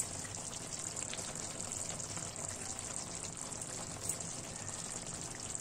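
Chicken karahi gravy simmering in a stainless steel pan, a steady soft bubbling hiss, with a few faint clicks from the tongs against the tomatoes and pan.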